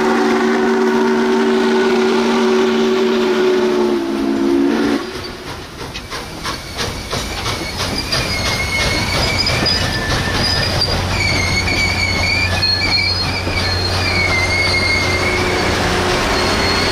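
Norfolk & Western 611's steam whistle blowing one long three-note chord for about five seconds as the locomotive passes. Then its passenger cars roll by with a steady clickety-clack over the rail joints, and a high, wavering wheel squeal joins from about eight seconds in.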